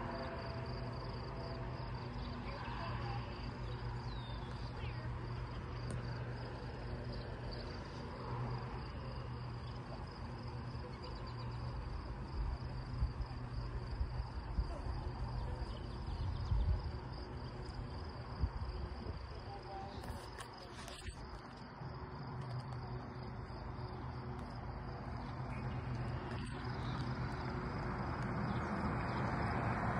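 Insects, such as crickets, trill steadily over a low, steady hum. Over the last few seconds a road vehicle approaches and grows louder.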